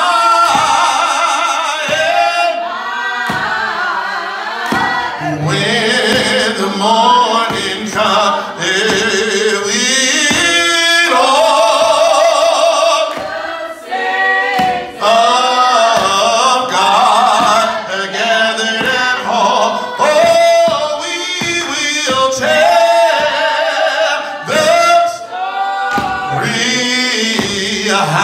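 A man singing a gospel song into a microphone, holding long notes that bend and slide between pitches.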